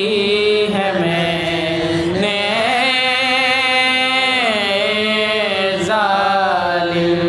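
Sozkhwani: a group of men's voices chanting a slow Shia lament (soz) in long held notes that glide up and down, with no instruments.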